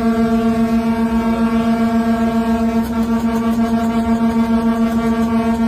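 Locomotive horn held in one long, steady blast as a warning to traffic at a level crossing ahead, over the low rumble of the train running.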